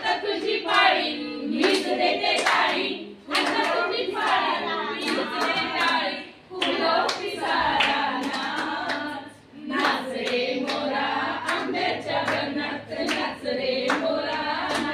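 Several people singing together, with hands clapping along in sharp, irregular claps. The singing breaks off briefly a few times.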